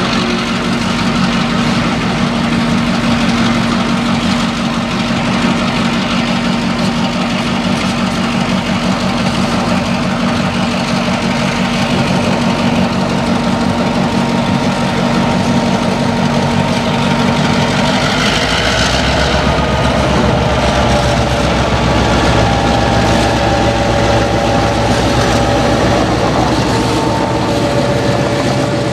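Diesel locomotives of a passenger train approaching and drawing alongside: a Mass Coastal road diesel leading a New Haven EMD FL9, with engines running steadily. About two-thirds in, the engine sound turns heavier and louder as the lead locomotive comes close.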